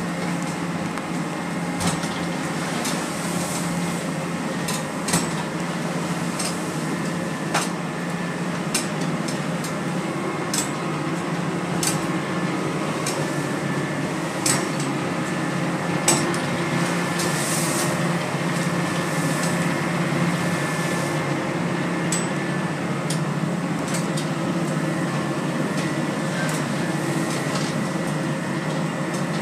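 Boat's engine droning steadily, heard inside the wheelhouse, with scattered sharp knocks and rattles over it.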